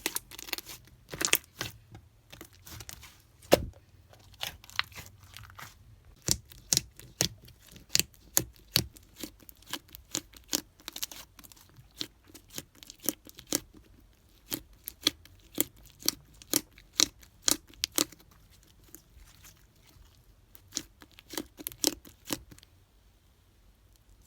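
Slime being worked by hand, giving an irregular run of sharp pops and crackles that stops near the end.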